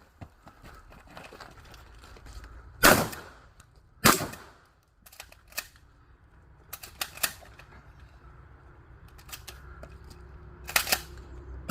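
Shotgun shots in a practical shooting stage: two loud shots about a second apart, a run of lighter sharp clicks and clanks in the middle, then another shot near the end.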